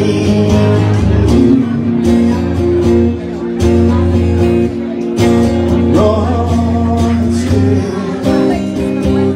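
Live music: a Telecaster-style electric guitar played through an amplifier, with a man singing into a microphone over it and a steady bass line underneath.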